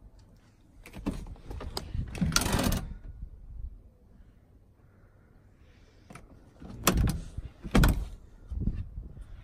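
Handling noise inside a hatchback's cabin: scattered clicks and knocks with a louder rustling burst, then, after a quiet stretch, three sharp knocks as a hand works the front seat back.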